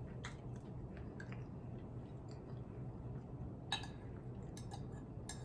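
A person chewing food, with a few short mouth clicks and one sharper click about two-thirds of the way through, over a steady low hum.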